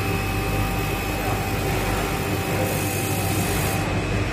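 Richpeace automatic single-head sewing machine running: a steady mechanical hum with a constant high whine over it, and a high hiss that drops away near the end.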